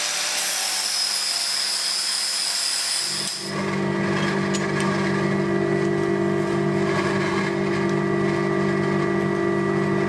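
Power tool running in a workshop: a hissing grind with a high whine, then about three and a half seconds in an abrupt change to a steady, even machine hum.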